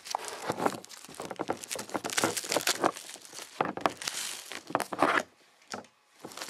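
Close handling noise: cardboard rustling and scraping against the microphone as the camera is set down by a cardboard model-kit box. It stops about five seconds in, with one short rustle a little later.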